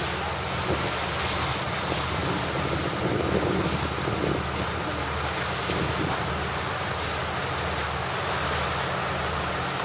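Wind buffeting the microphone over the steady drone of a motor cruiser's engine and water rushing past the hull.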